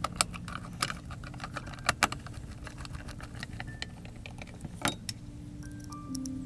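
Irregular metallic clicks and ticks from a hand screwdriver and small metal screws as the screws that clamp the floodlight's glass window against its seal are tightened, over a steady low hum.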